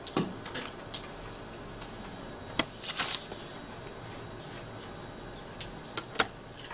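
Paper sheets sliding and rustling as drawing paper is shifted on a desk, with a few sharp taps and clicks of small hand-held drawing tools set down. The loudest tap comes near the middle of the clip, just before a short rustle.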